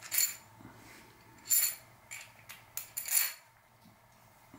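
Light metal clinks as bottom bracket parts and tools are handled and knocked together: about six sharp, separate clinks with a brief high ring, the loudest about one and a half and three seconds in.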